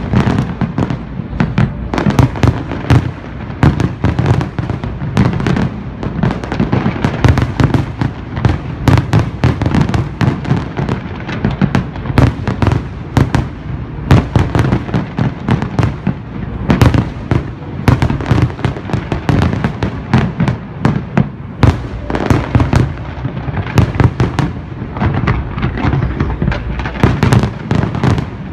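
Loud, continuous fireworks barrage: many shell bursts a second overlapping, with no pause, over a steady low rumble.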